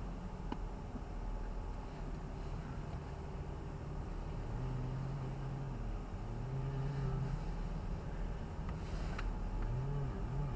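Car cabin noise: a steady low engine and road rumble while driving, with a low droning tone that comes and goes.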